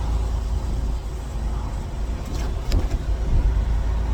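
Semi-truck driving, heard inside the cab: a steady low engine and road drone, with a couple of brief clicks near the middle.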